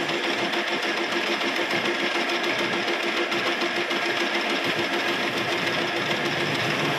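Metal lathe running with its chuck spinning: a steady mechanical whir with an evenly repeating pulse at one pitch.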